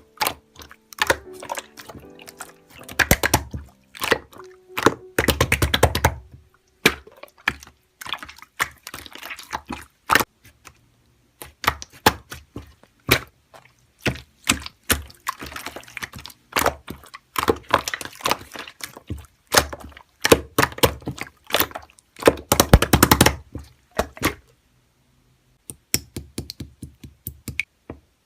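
Slime being squeezed, pressed and poked by hand, making rapid sticky clicks and crackling pops that come in dense bursts, the loudest a few seconds in and again near the end.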